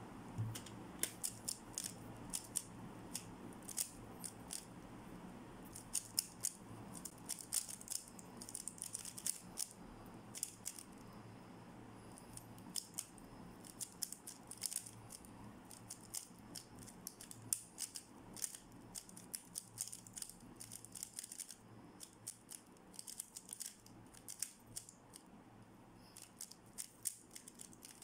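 MoYu RS3M 2020 3x3 speed cube being turned fast during a timed solve: quick runs of plastic clicks and clacks, broken by brief pauses. The turning starts about a second in.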